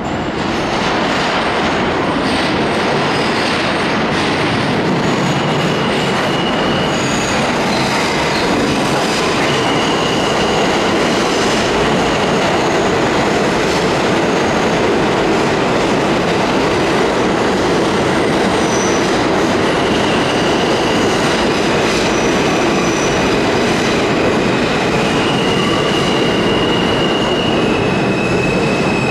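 R46 subway train running on the track, a loud steady rumble of wheels on rail with high-pitched wheel squeals coming and going several times.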